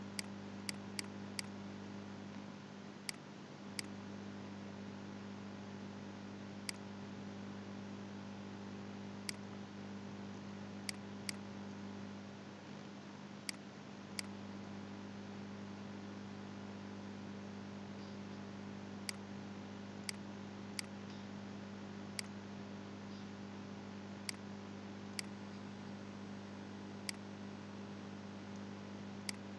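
Computer mouse clicks, about twenty sharp single clicks and quick pairs spread out, over a steady electrical hum.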